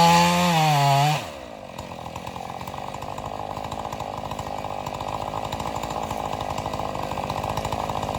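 Two-stroke chainsaw held at full throttle, high and loud, for about a second. It then drops back sharply to a quieter steady idle.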